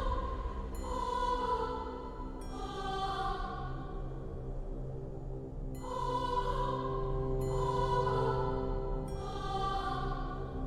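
Eerie horror music: long held, choir-like tones over a low drone, with a bright shimmering chord swelling up and fading away five times.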